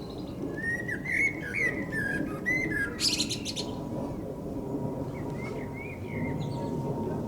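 Eurasian blackbird singing: a fluting, warbled phrase that ends in a short, loud, high squeaky twitter, then a second, fainter warbled phrase about five seconds in.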